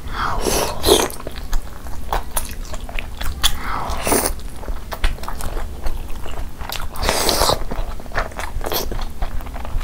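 Close-miked biting and chewing of steamed chicken momos soaked in spicy jhol gravy: wet mouth clicks throughout, with a few louder bites about a second in, around four seconds and around seven seconds.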